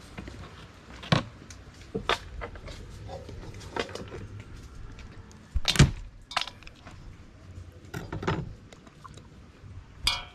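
Scattered clicks and knocks of cooked crab shells being cracked and handled in a stainless steel bowl, with one heavier thump a little past halfway.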